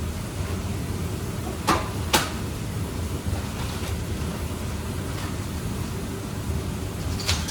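Two sharp knocks about half a second apart, about two seconds in, and another near the end, as kitchen items are set down while a work station is laid out, over a steady rushing background noise.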